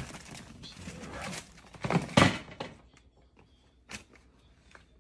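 Gift wrapping paper rustling and crackling as a present is torn open and pulled apart, with the loudest rip about two seconds in. After that it goes much quieter, with a few light taps of things being handled.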